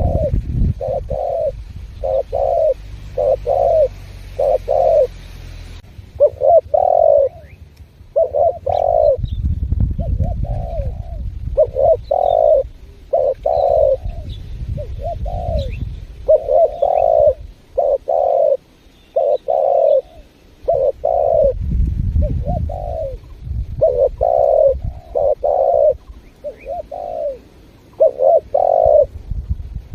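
Spotted dove (tekukur) cooing vigorously: a long run of short, low coos, about one or two a second, in phrases with brief pauses. A low rumble sits underneath now and then.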